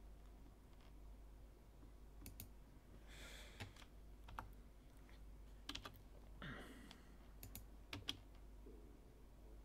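Faint, scattered clicks of computer keyboard keys and a mouse, a few taps spaced a second or so apart, over a steady low hum.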